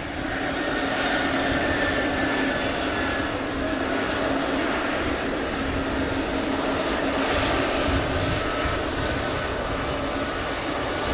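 Air Canada Airbus A220-300's Pratt & Whitney PW1500G geared turbofan engines running at low taxi power as the jet rolls onto the runway. A steady jet rush with a held low hum.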